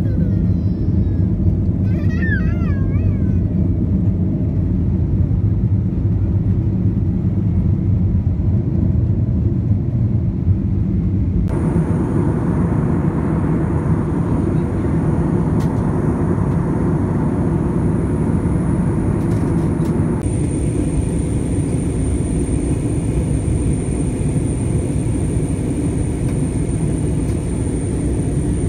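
Airliner cabin noise heard at a window seat: a loud, steady rumble of the jet engines and rushing air. The hiss in it changes abruptly twice, about twelve and twenty seconds in.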